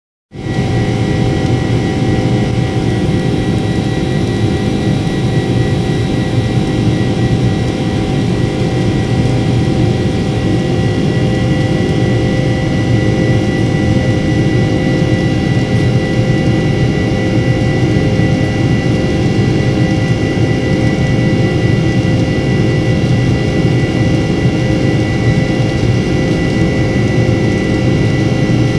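Boeing 747-400's Rolls-Royce RB211 turbofan engines at climb power, heard from inside the cabin over the wing. A steady, loud rumble carries several high, held engine tones above it.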